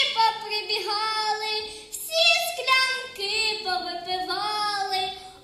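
A young girl singing a solo melody through a microphone, in phrases of long held notes.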